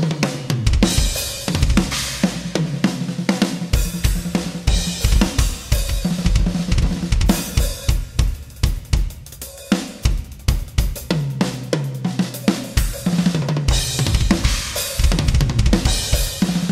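Acoustic drum kit played hard for a studio sound check: kick, snare and toms in busy grooves and fills, with the toms ringing low and Zildjian crash cymbals washing over the beat in several stretches. The playing thins out briefly about nine seconds in before building again.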